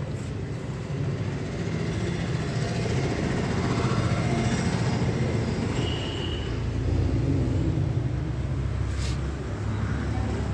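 Steady low rumble of outdoor background noise, with a brief sharp click about nine seconds in.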